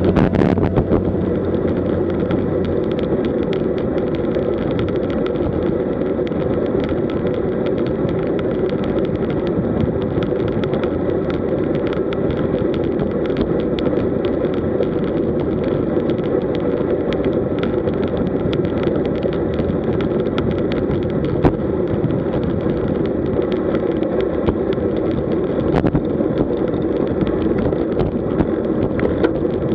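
Steady wind rush buffeting the microphone of a camera on a road bike moving at around 36–42 km/h, with scattered small pops and clicks.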